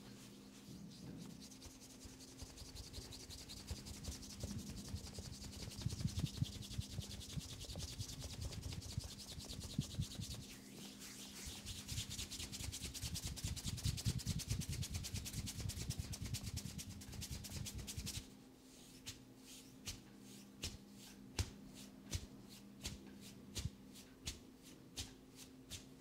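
Fingertips rubbing quickly over the skin of a man's neck and jaw during a massage, a dense scratchy rubbing. About 18 s in it changes to slower, separate strokes, roughly two a second.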